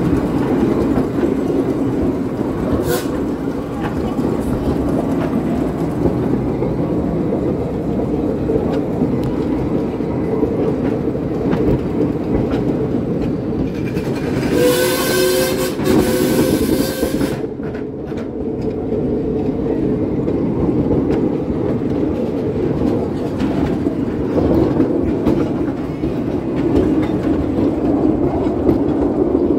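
Miniature railway train running, heard from its open passenger carriage: a steady rumble of the wheels on the track with light rail-joint clicks. About halfway through the train gives one warning blast about three seconds long.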